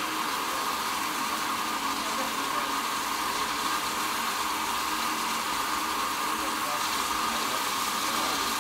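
Steam locomotive standing at a station, simmering with a steady hiss and a continuous hum, against a background of people's voices.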